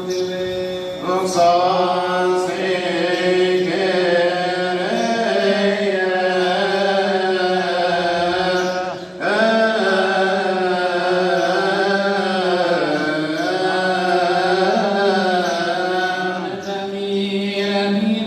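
A male deacon chanting a long melismatic Coptic liturgical melody solo. The voice holds and bends its notes, with a short breath about nine seconds in.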